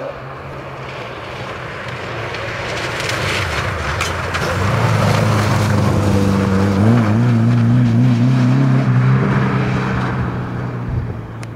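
Ford Escort RS rally car driving past at speed: the engine note grows louder as it approaches, is loudest as it passes about halfway through, with its pitch wavering, then fades as it drives away.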